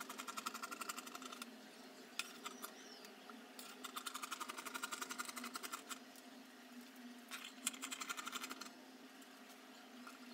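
Scissors cutting through fabric on a table, snipping in three runs of rapid, even clicks with a few single snips between them, over a faint steady hum.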